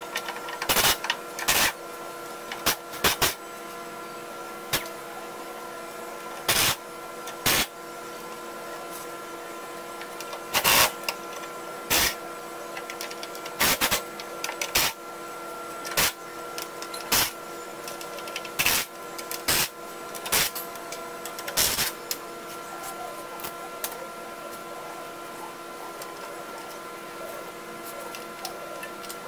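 Sharp, irregular metallic clanks and clicks of hand tools and parts on the metal cutter head of a Munckhof vine trimmer during belt maintenance, some in quick pairs. Under them runs a steady shop hum with several tones.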